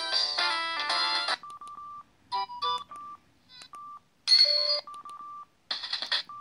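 Samsung SGH-E720 mobile phone playing its ringtones. A polyphonic melody cuts off about a second and a half in, followed by a string of short single-pitch beeps and brief snatches of other tones. A new tone starts near the end.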